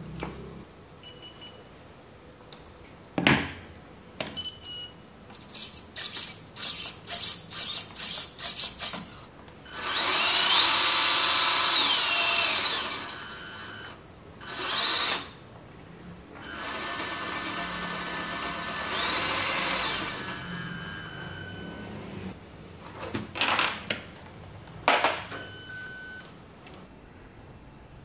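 The small electric motors of a LEGO Technic model converted to RC, a 370-size DC drive motor and an SG90 steering servo, worked from a transmitter. There is a quick string of short buzzing blips, then two longer runs of a few seconds each whose whine rises in pitch and falls back, and a few more blips near the end.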